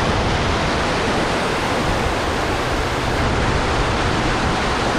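Steady, loud rush of fast-flowing water running high after a storm.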